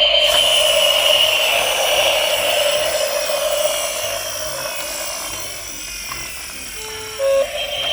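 Toy vehicles whirring with a steady rattling noise that slowly fades. Near the end come two short tones, the second one louder.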